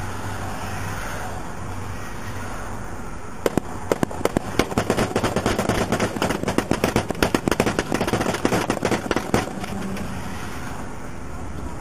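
Dozens of gunshots in rapid succession from several guns at once, a gunfight between officers and the driver of a pickup that lasts about six seconds, starting about three and a half seconds in. A steady hum of engine and road noise runs underneath.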